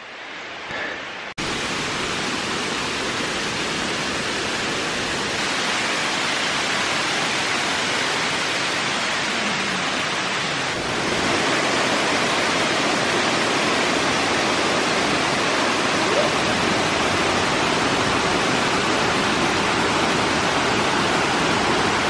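Steady rushing of a waterfall cascading over rock steps. It starts abruptly just over a second in and gets a little louder about halfway through.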